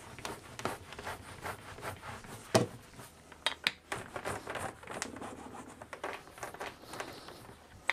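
Small hand roller pressed hard and rolled back and forth over glue-wet fabric on wooden tambour slats: a scratchy rubbing broken by irregular light clicks and ticks.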